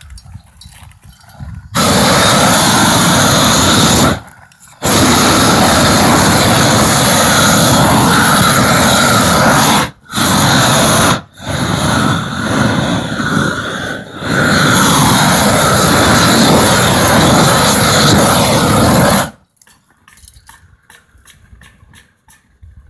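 Propane roofing torch burning at full flame, heating the underside of a torch-down modified bitumen sheet to melt its asphalt so it bonds (heat welding). The flame comes on about two seconds in, cuts out for a moment three times and wavers in the middle, and shuts off about 19 seconds in.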